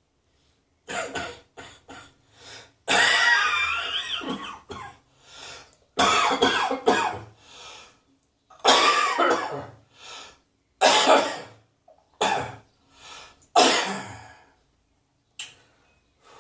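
A person coughing over and over in separate bouts, mixed with throat clearing. The longest bout starts about three seconds in and lasts nearly two seconds; the others are shorter, with brief pauses between them.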